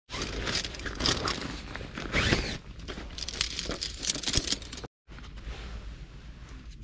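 Rustling and crinkling of a fabric stuff sack as tent poles are drawn out of it, with light clicks and clatter of the pole sections knocking together. After an abrupt cut about five seconds in, quieter handling noise follows.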